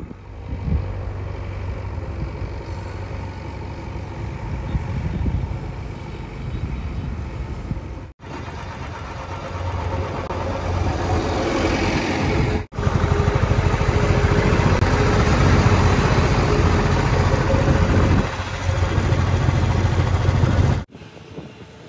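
JCB 3DX backhoe loader's diesel engine running steadily as the machine drives along a road, in several cut-together clips. The sound breaks off abruptly at each cut, about a third of the way in, just past halfway and near the end, and the engine is loudest in the last stretch before the final cut.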